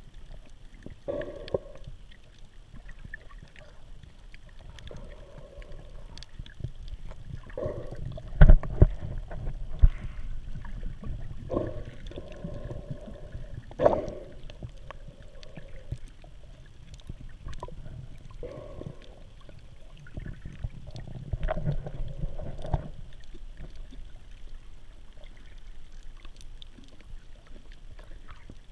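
Water sloshing and gurgling around an underwater camera held just below the surface, over a low muffled rumble. A muffled sound recurs every few seconds, and a few sharp knocks stand out, the loudest about eight seconds in.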